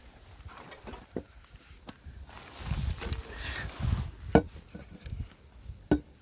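A few sharp knocks of a walking stick and footsteps on a hillside trail, the loudest about four seconds in. Wind buffets the microphone in the middle, a low gusty rumble.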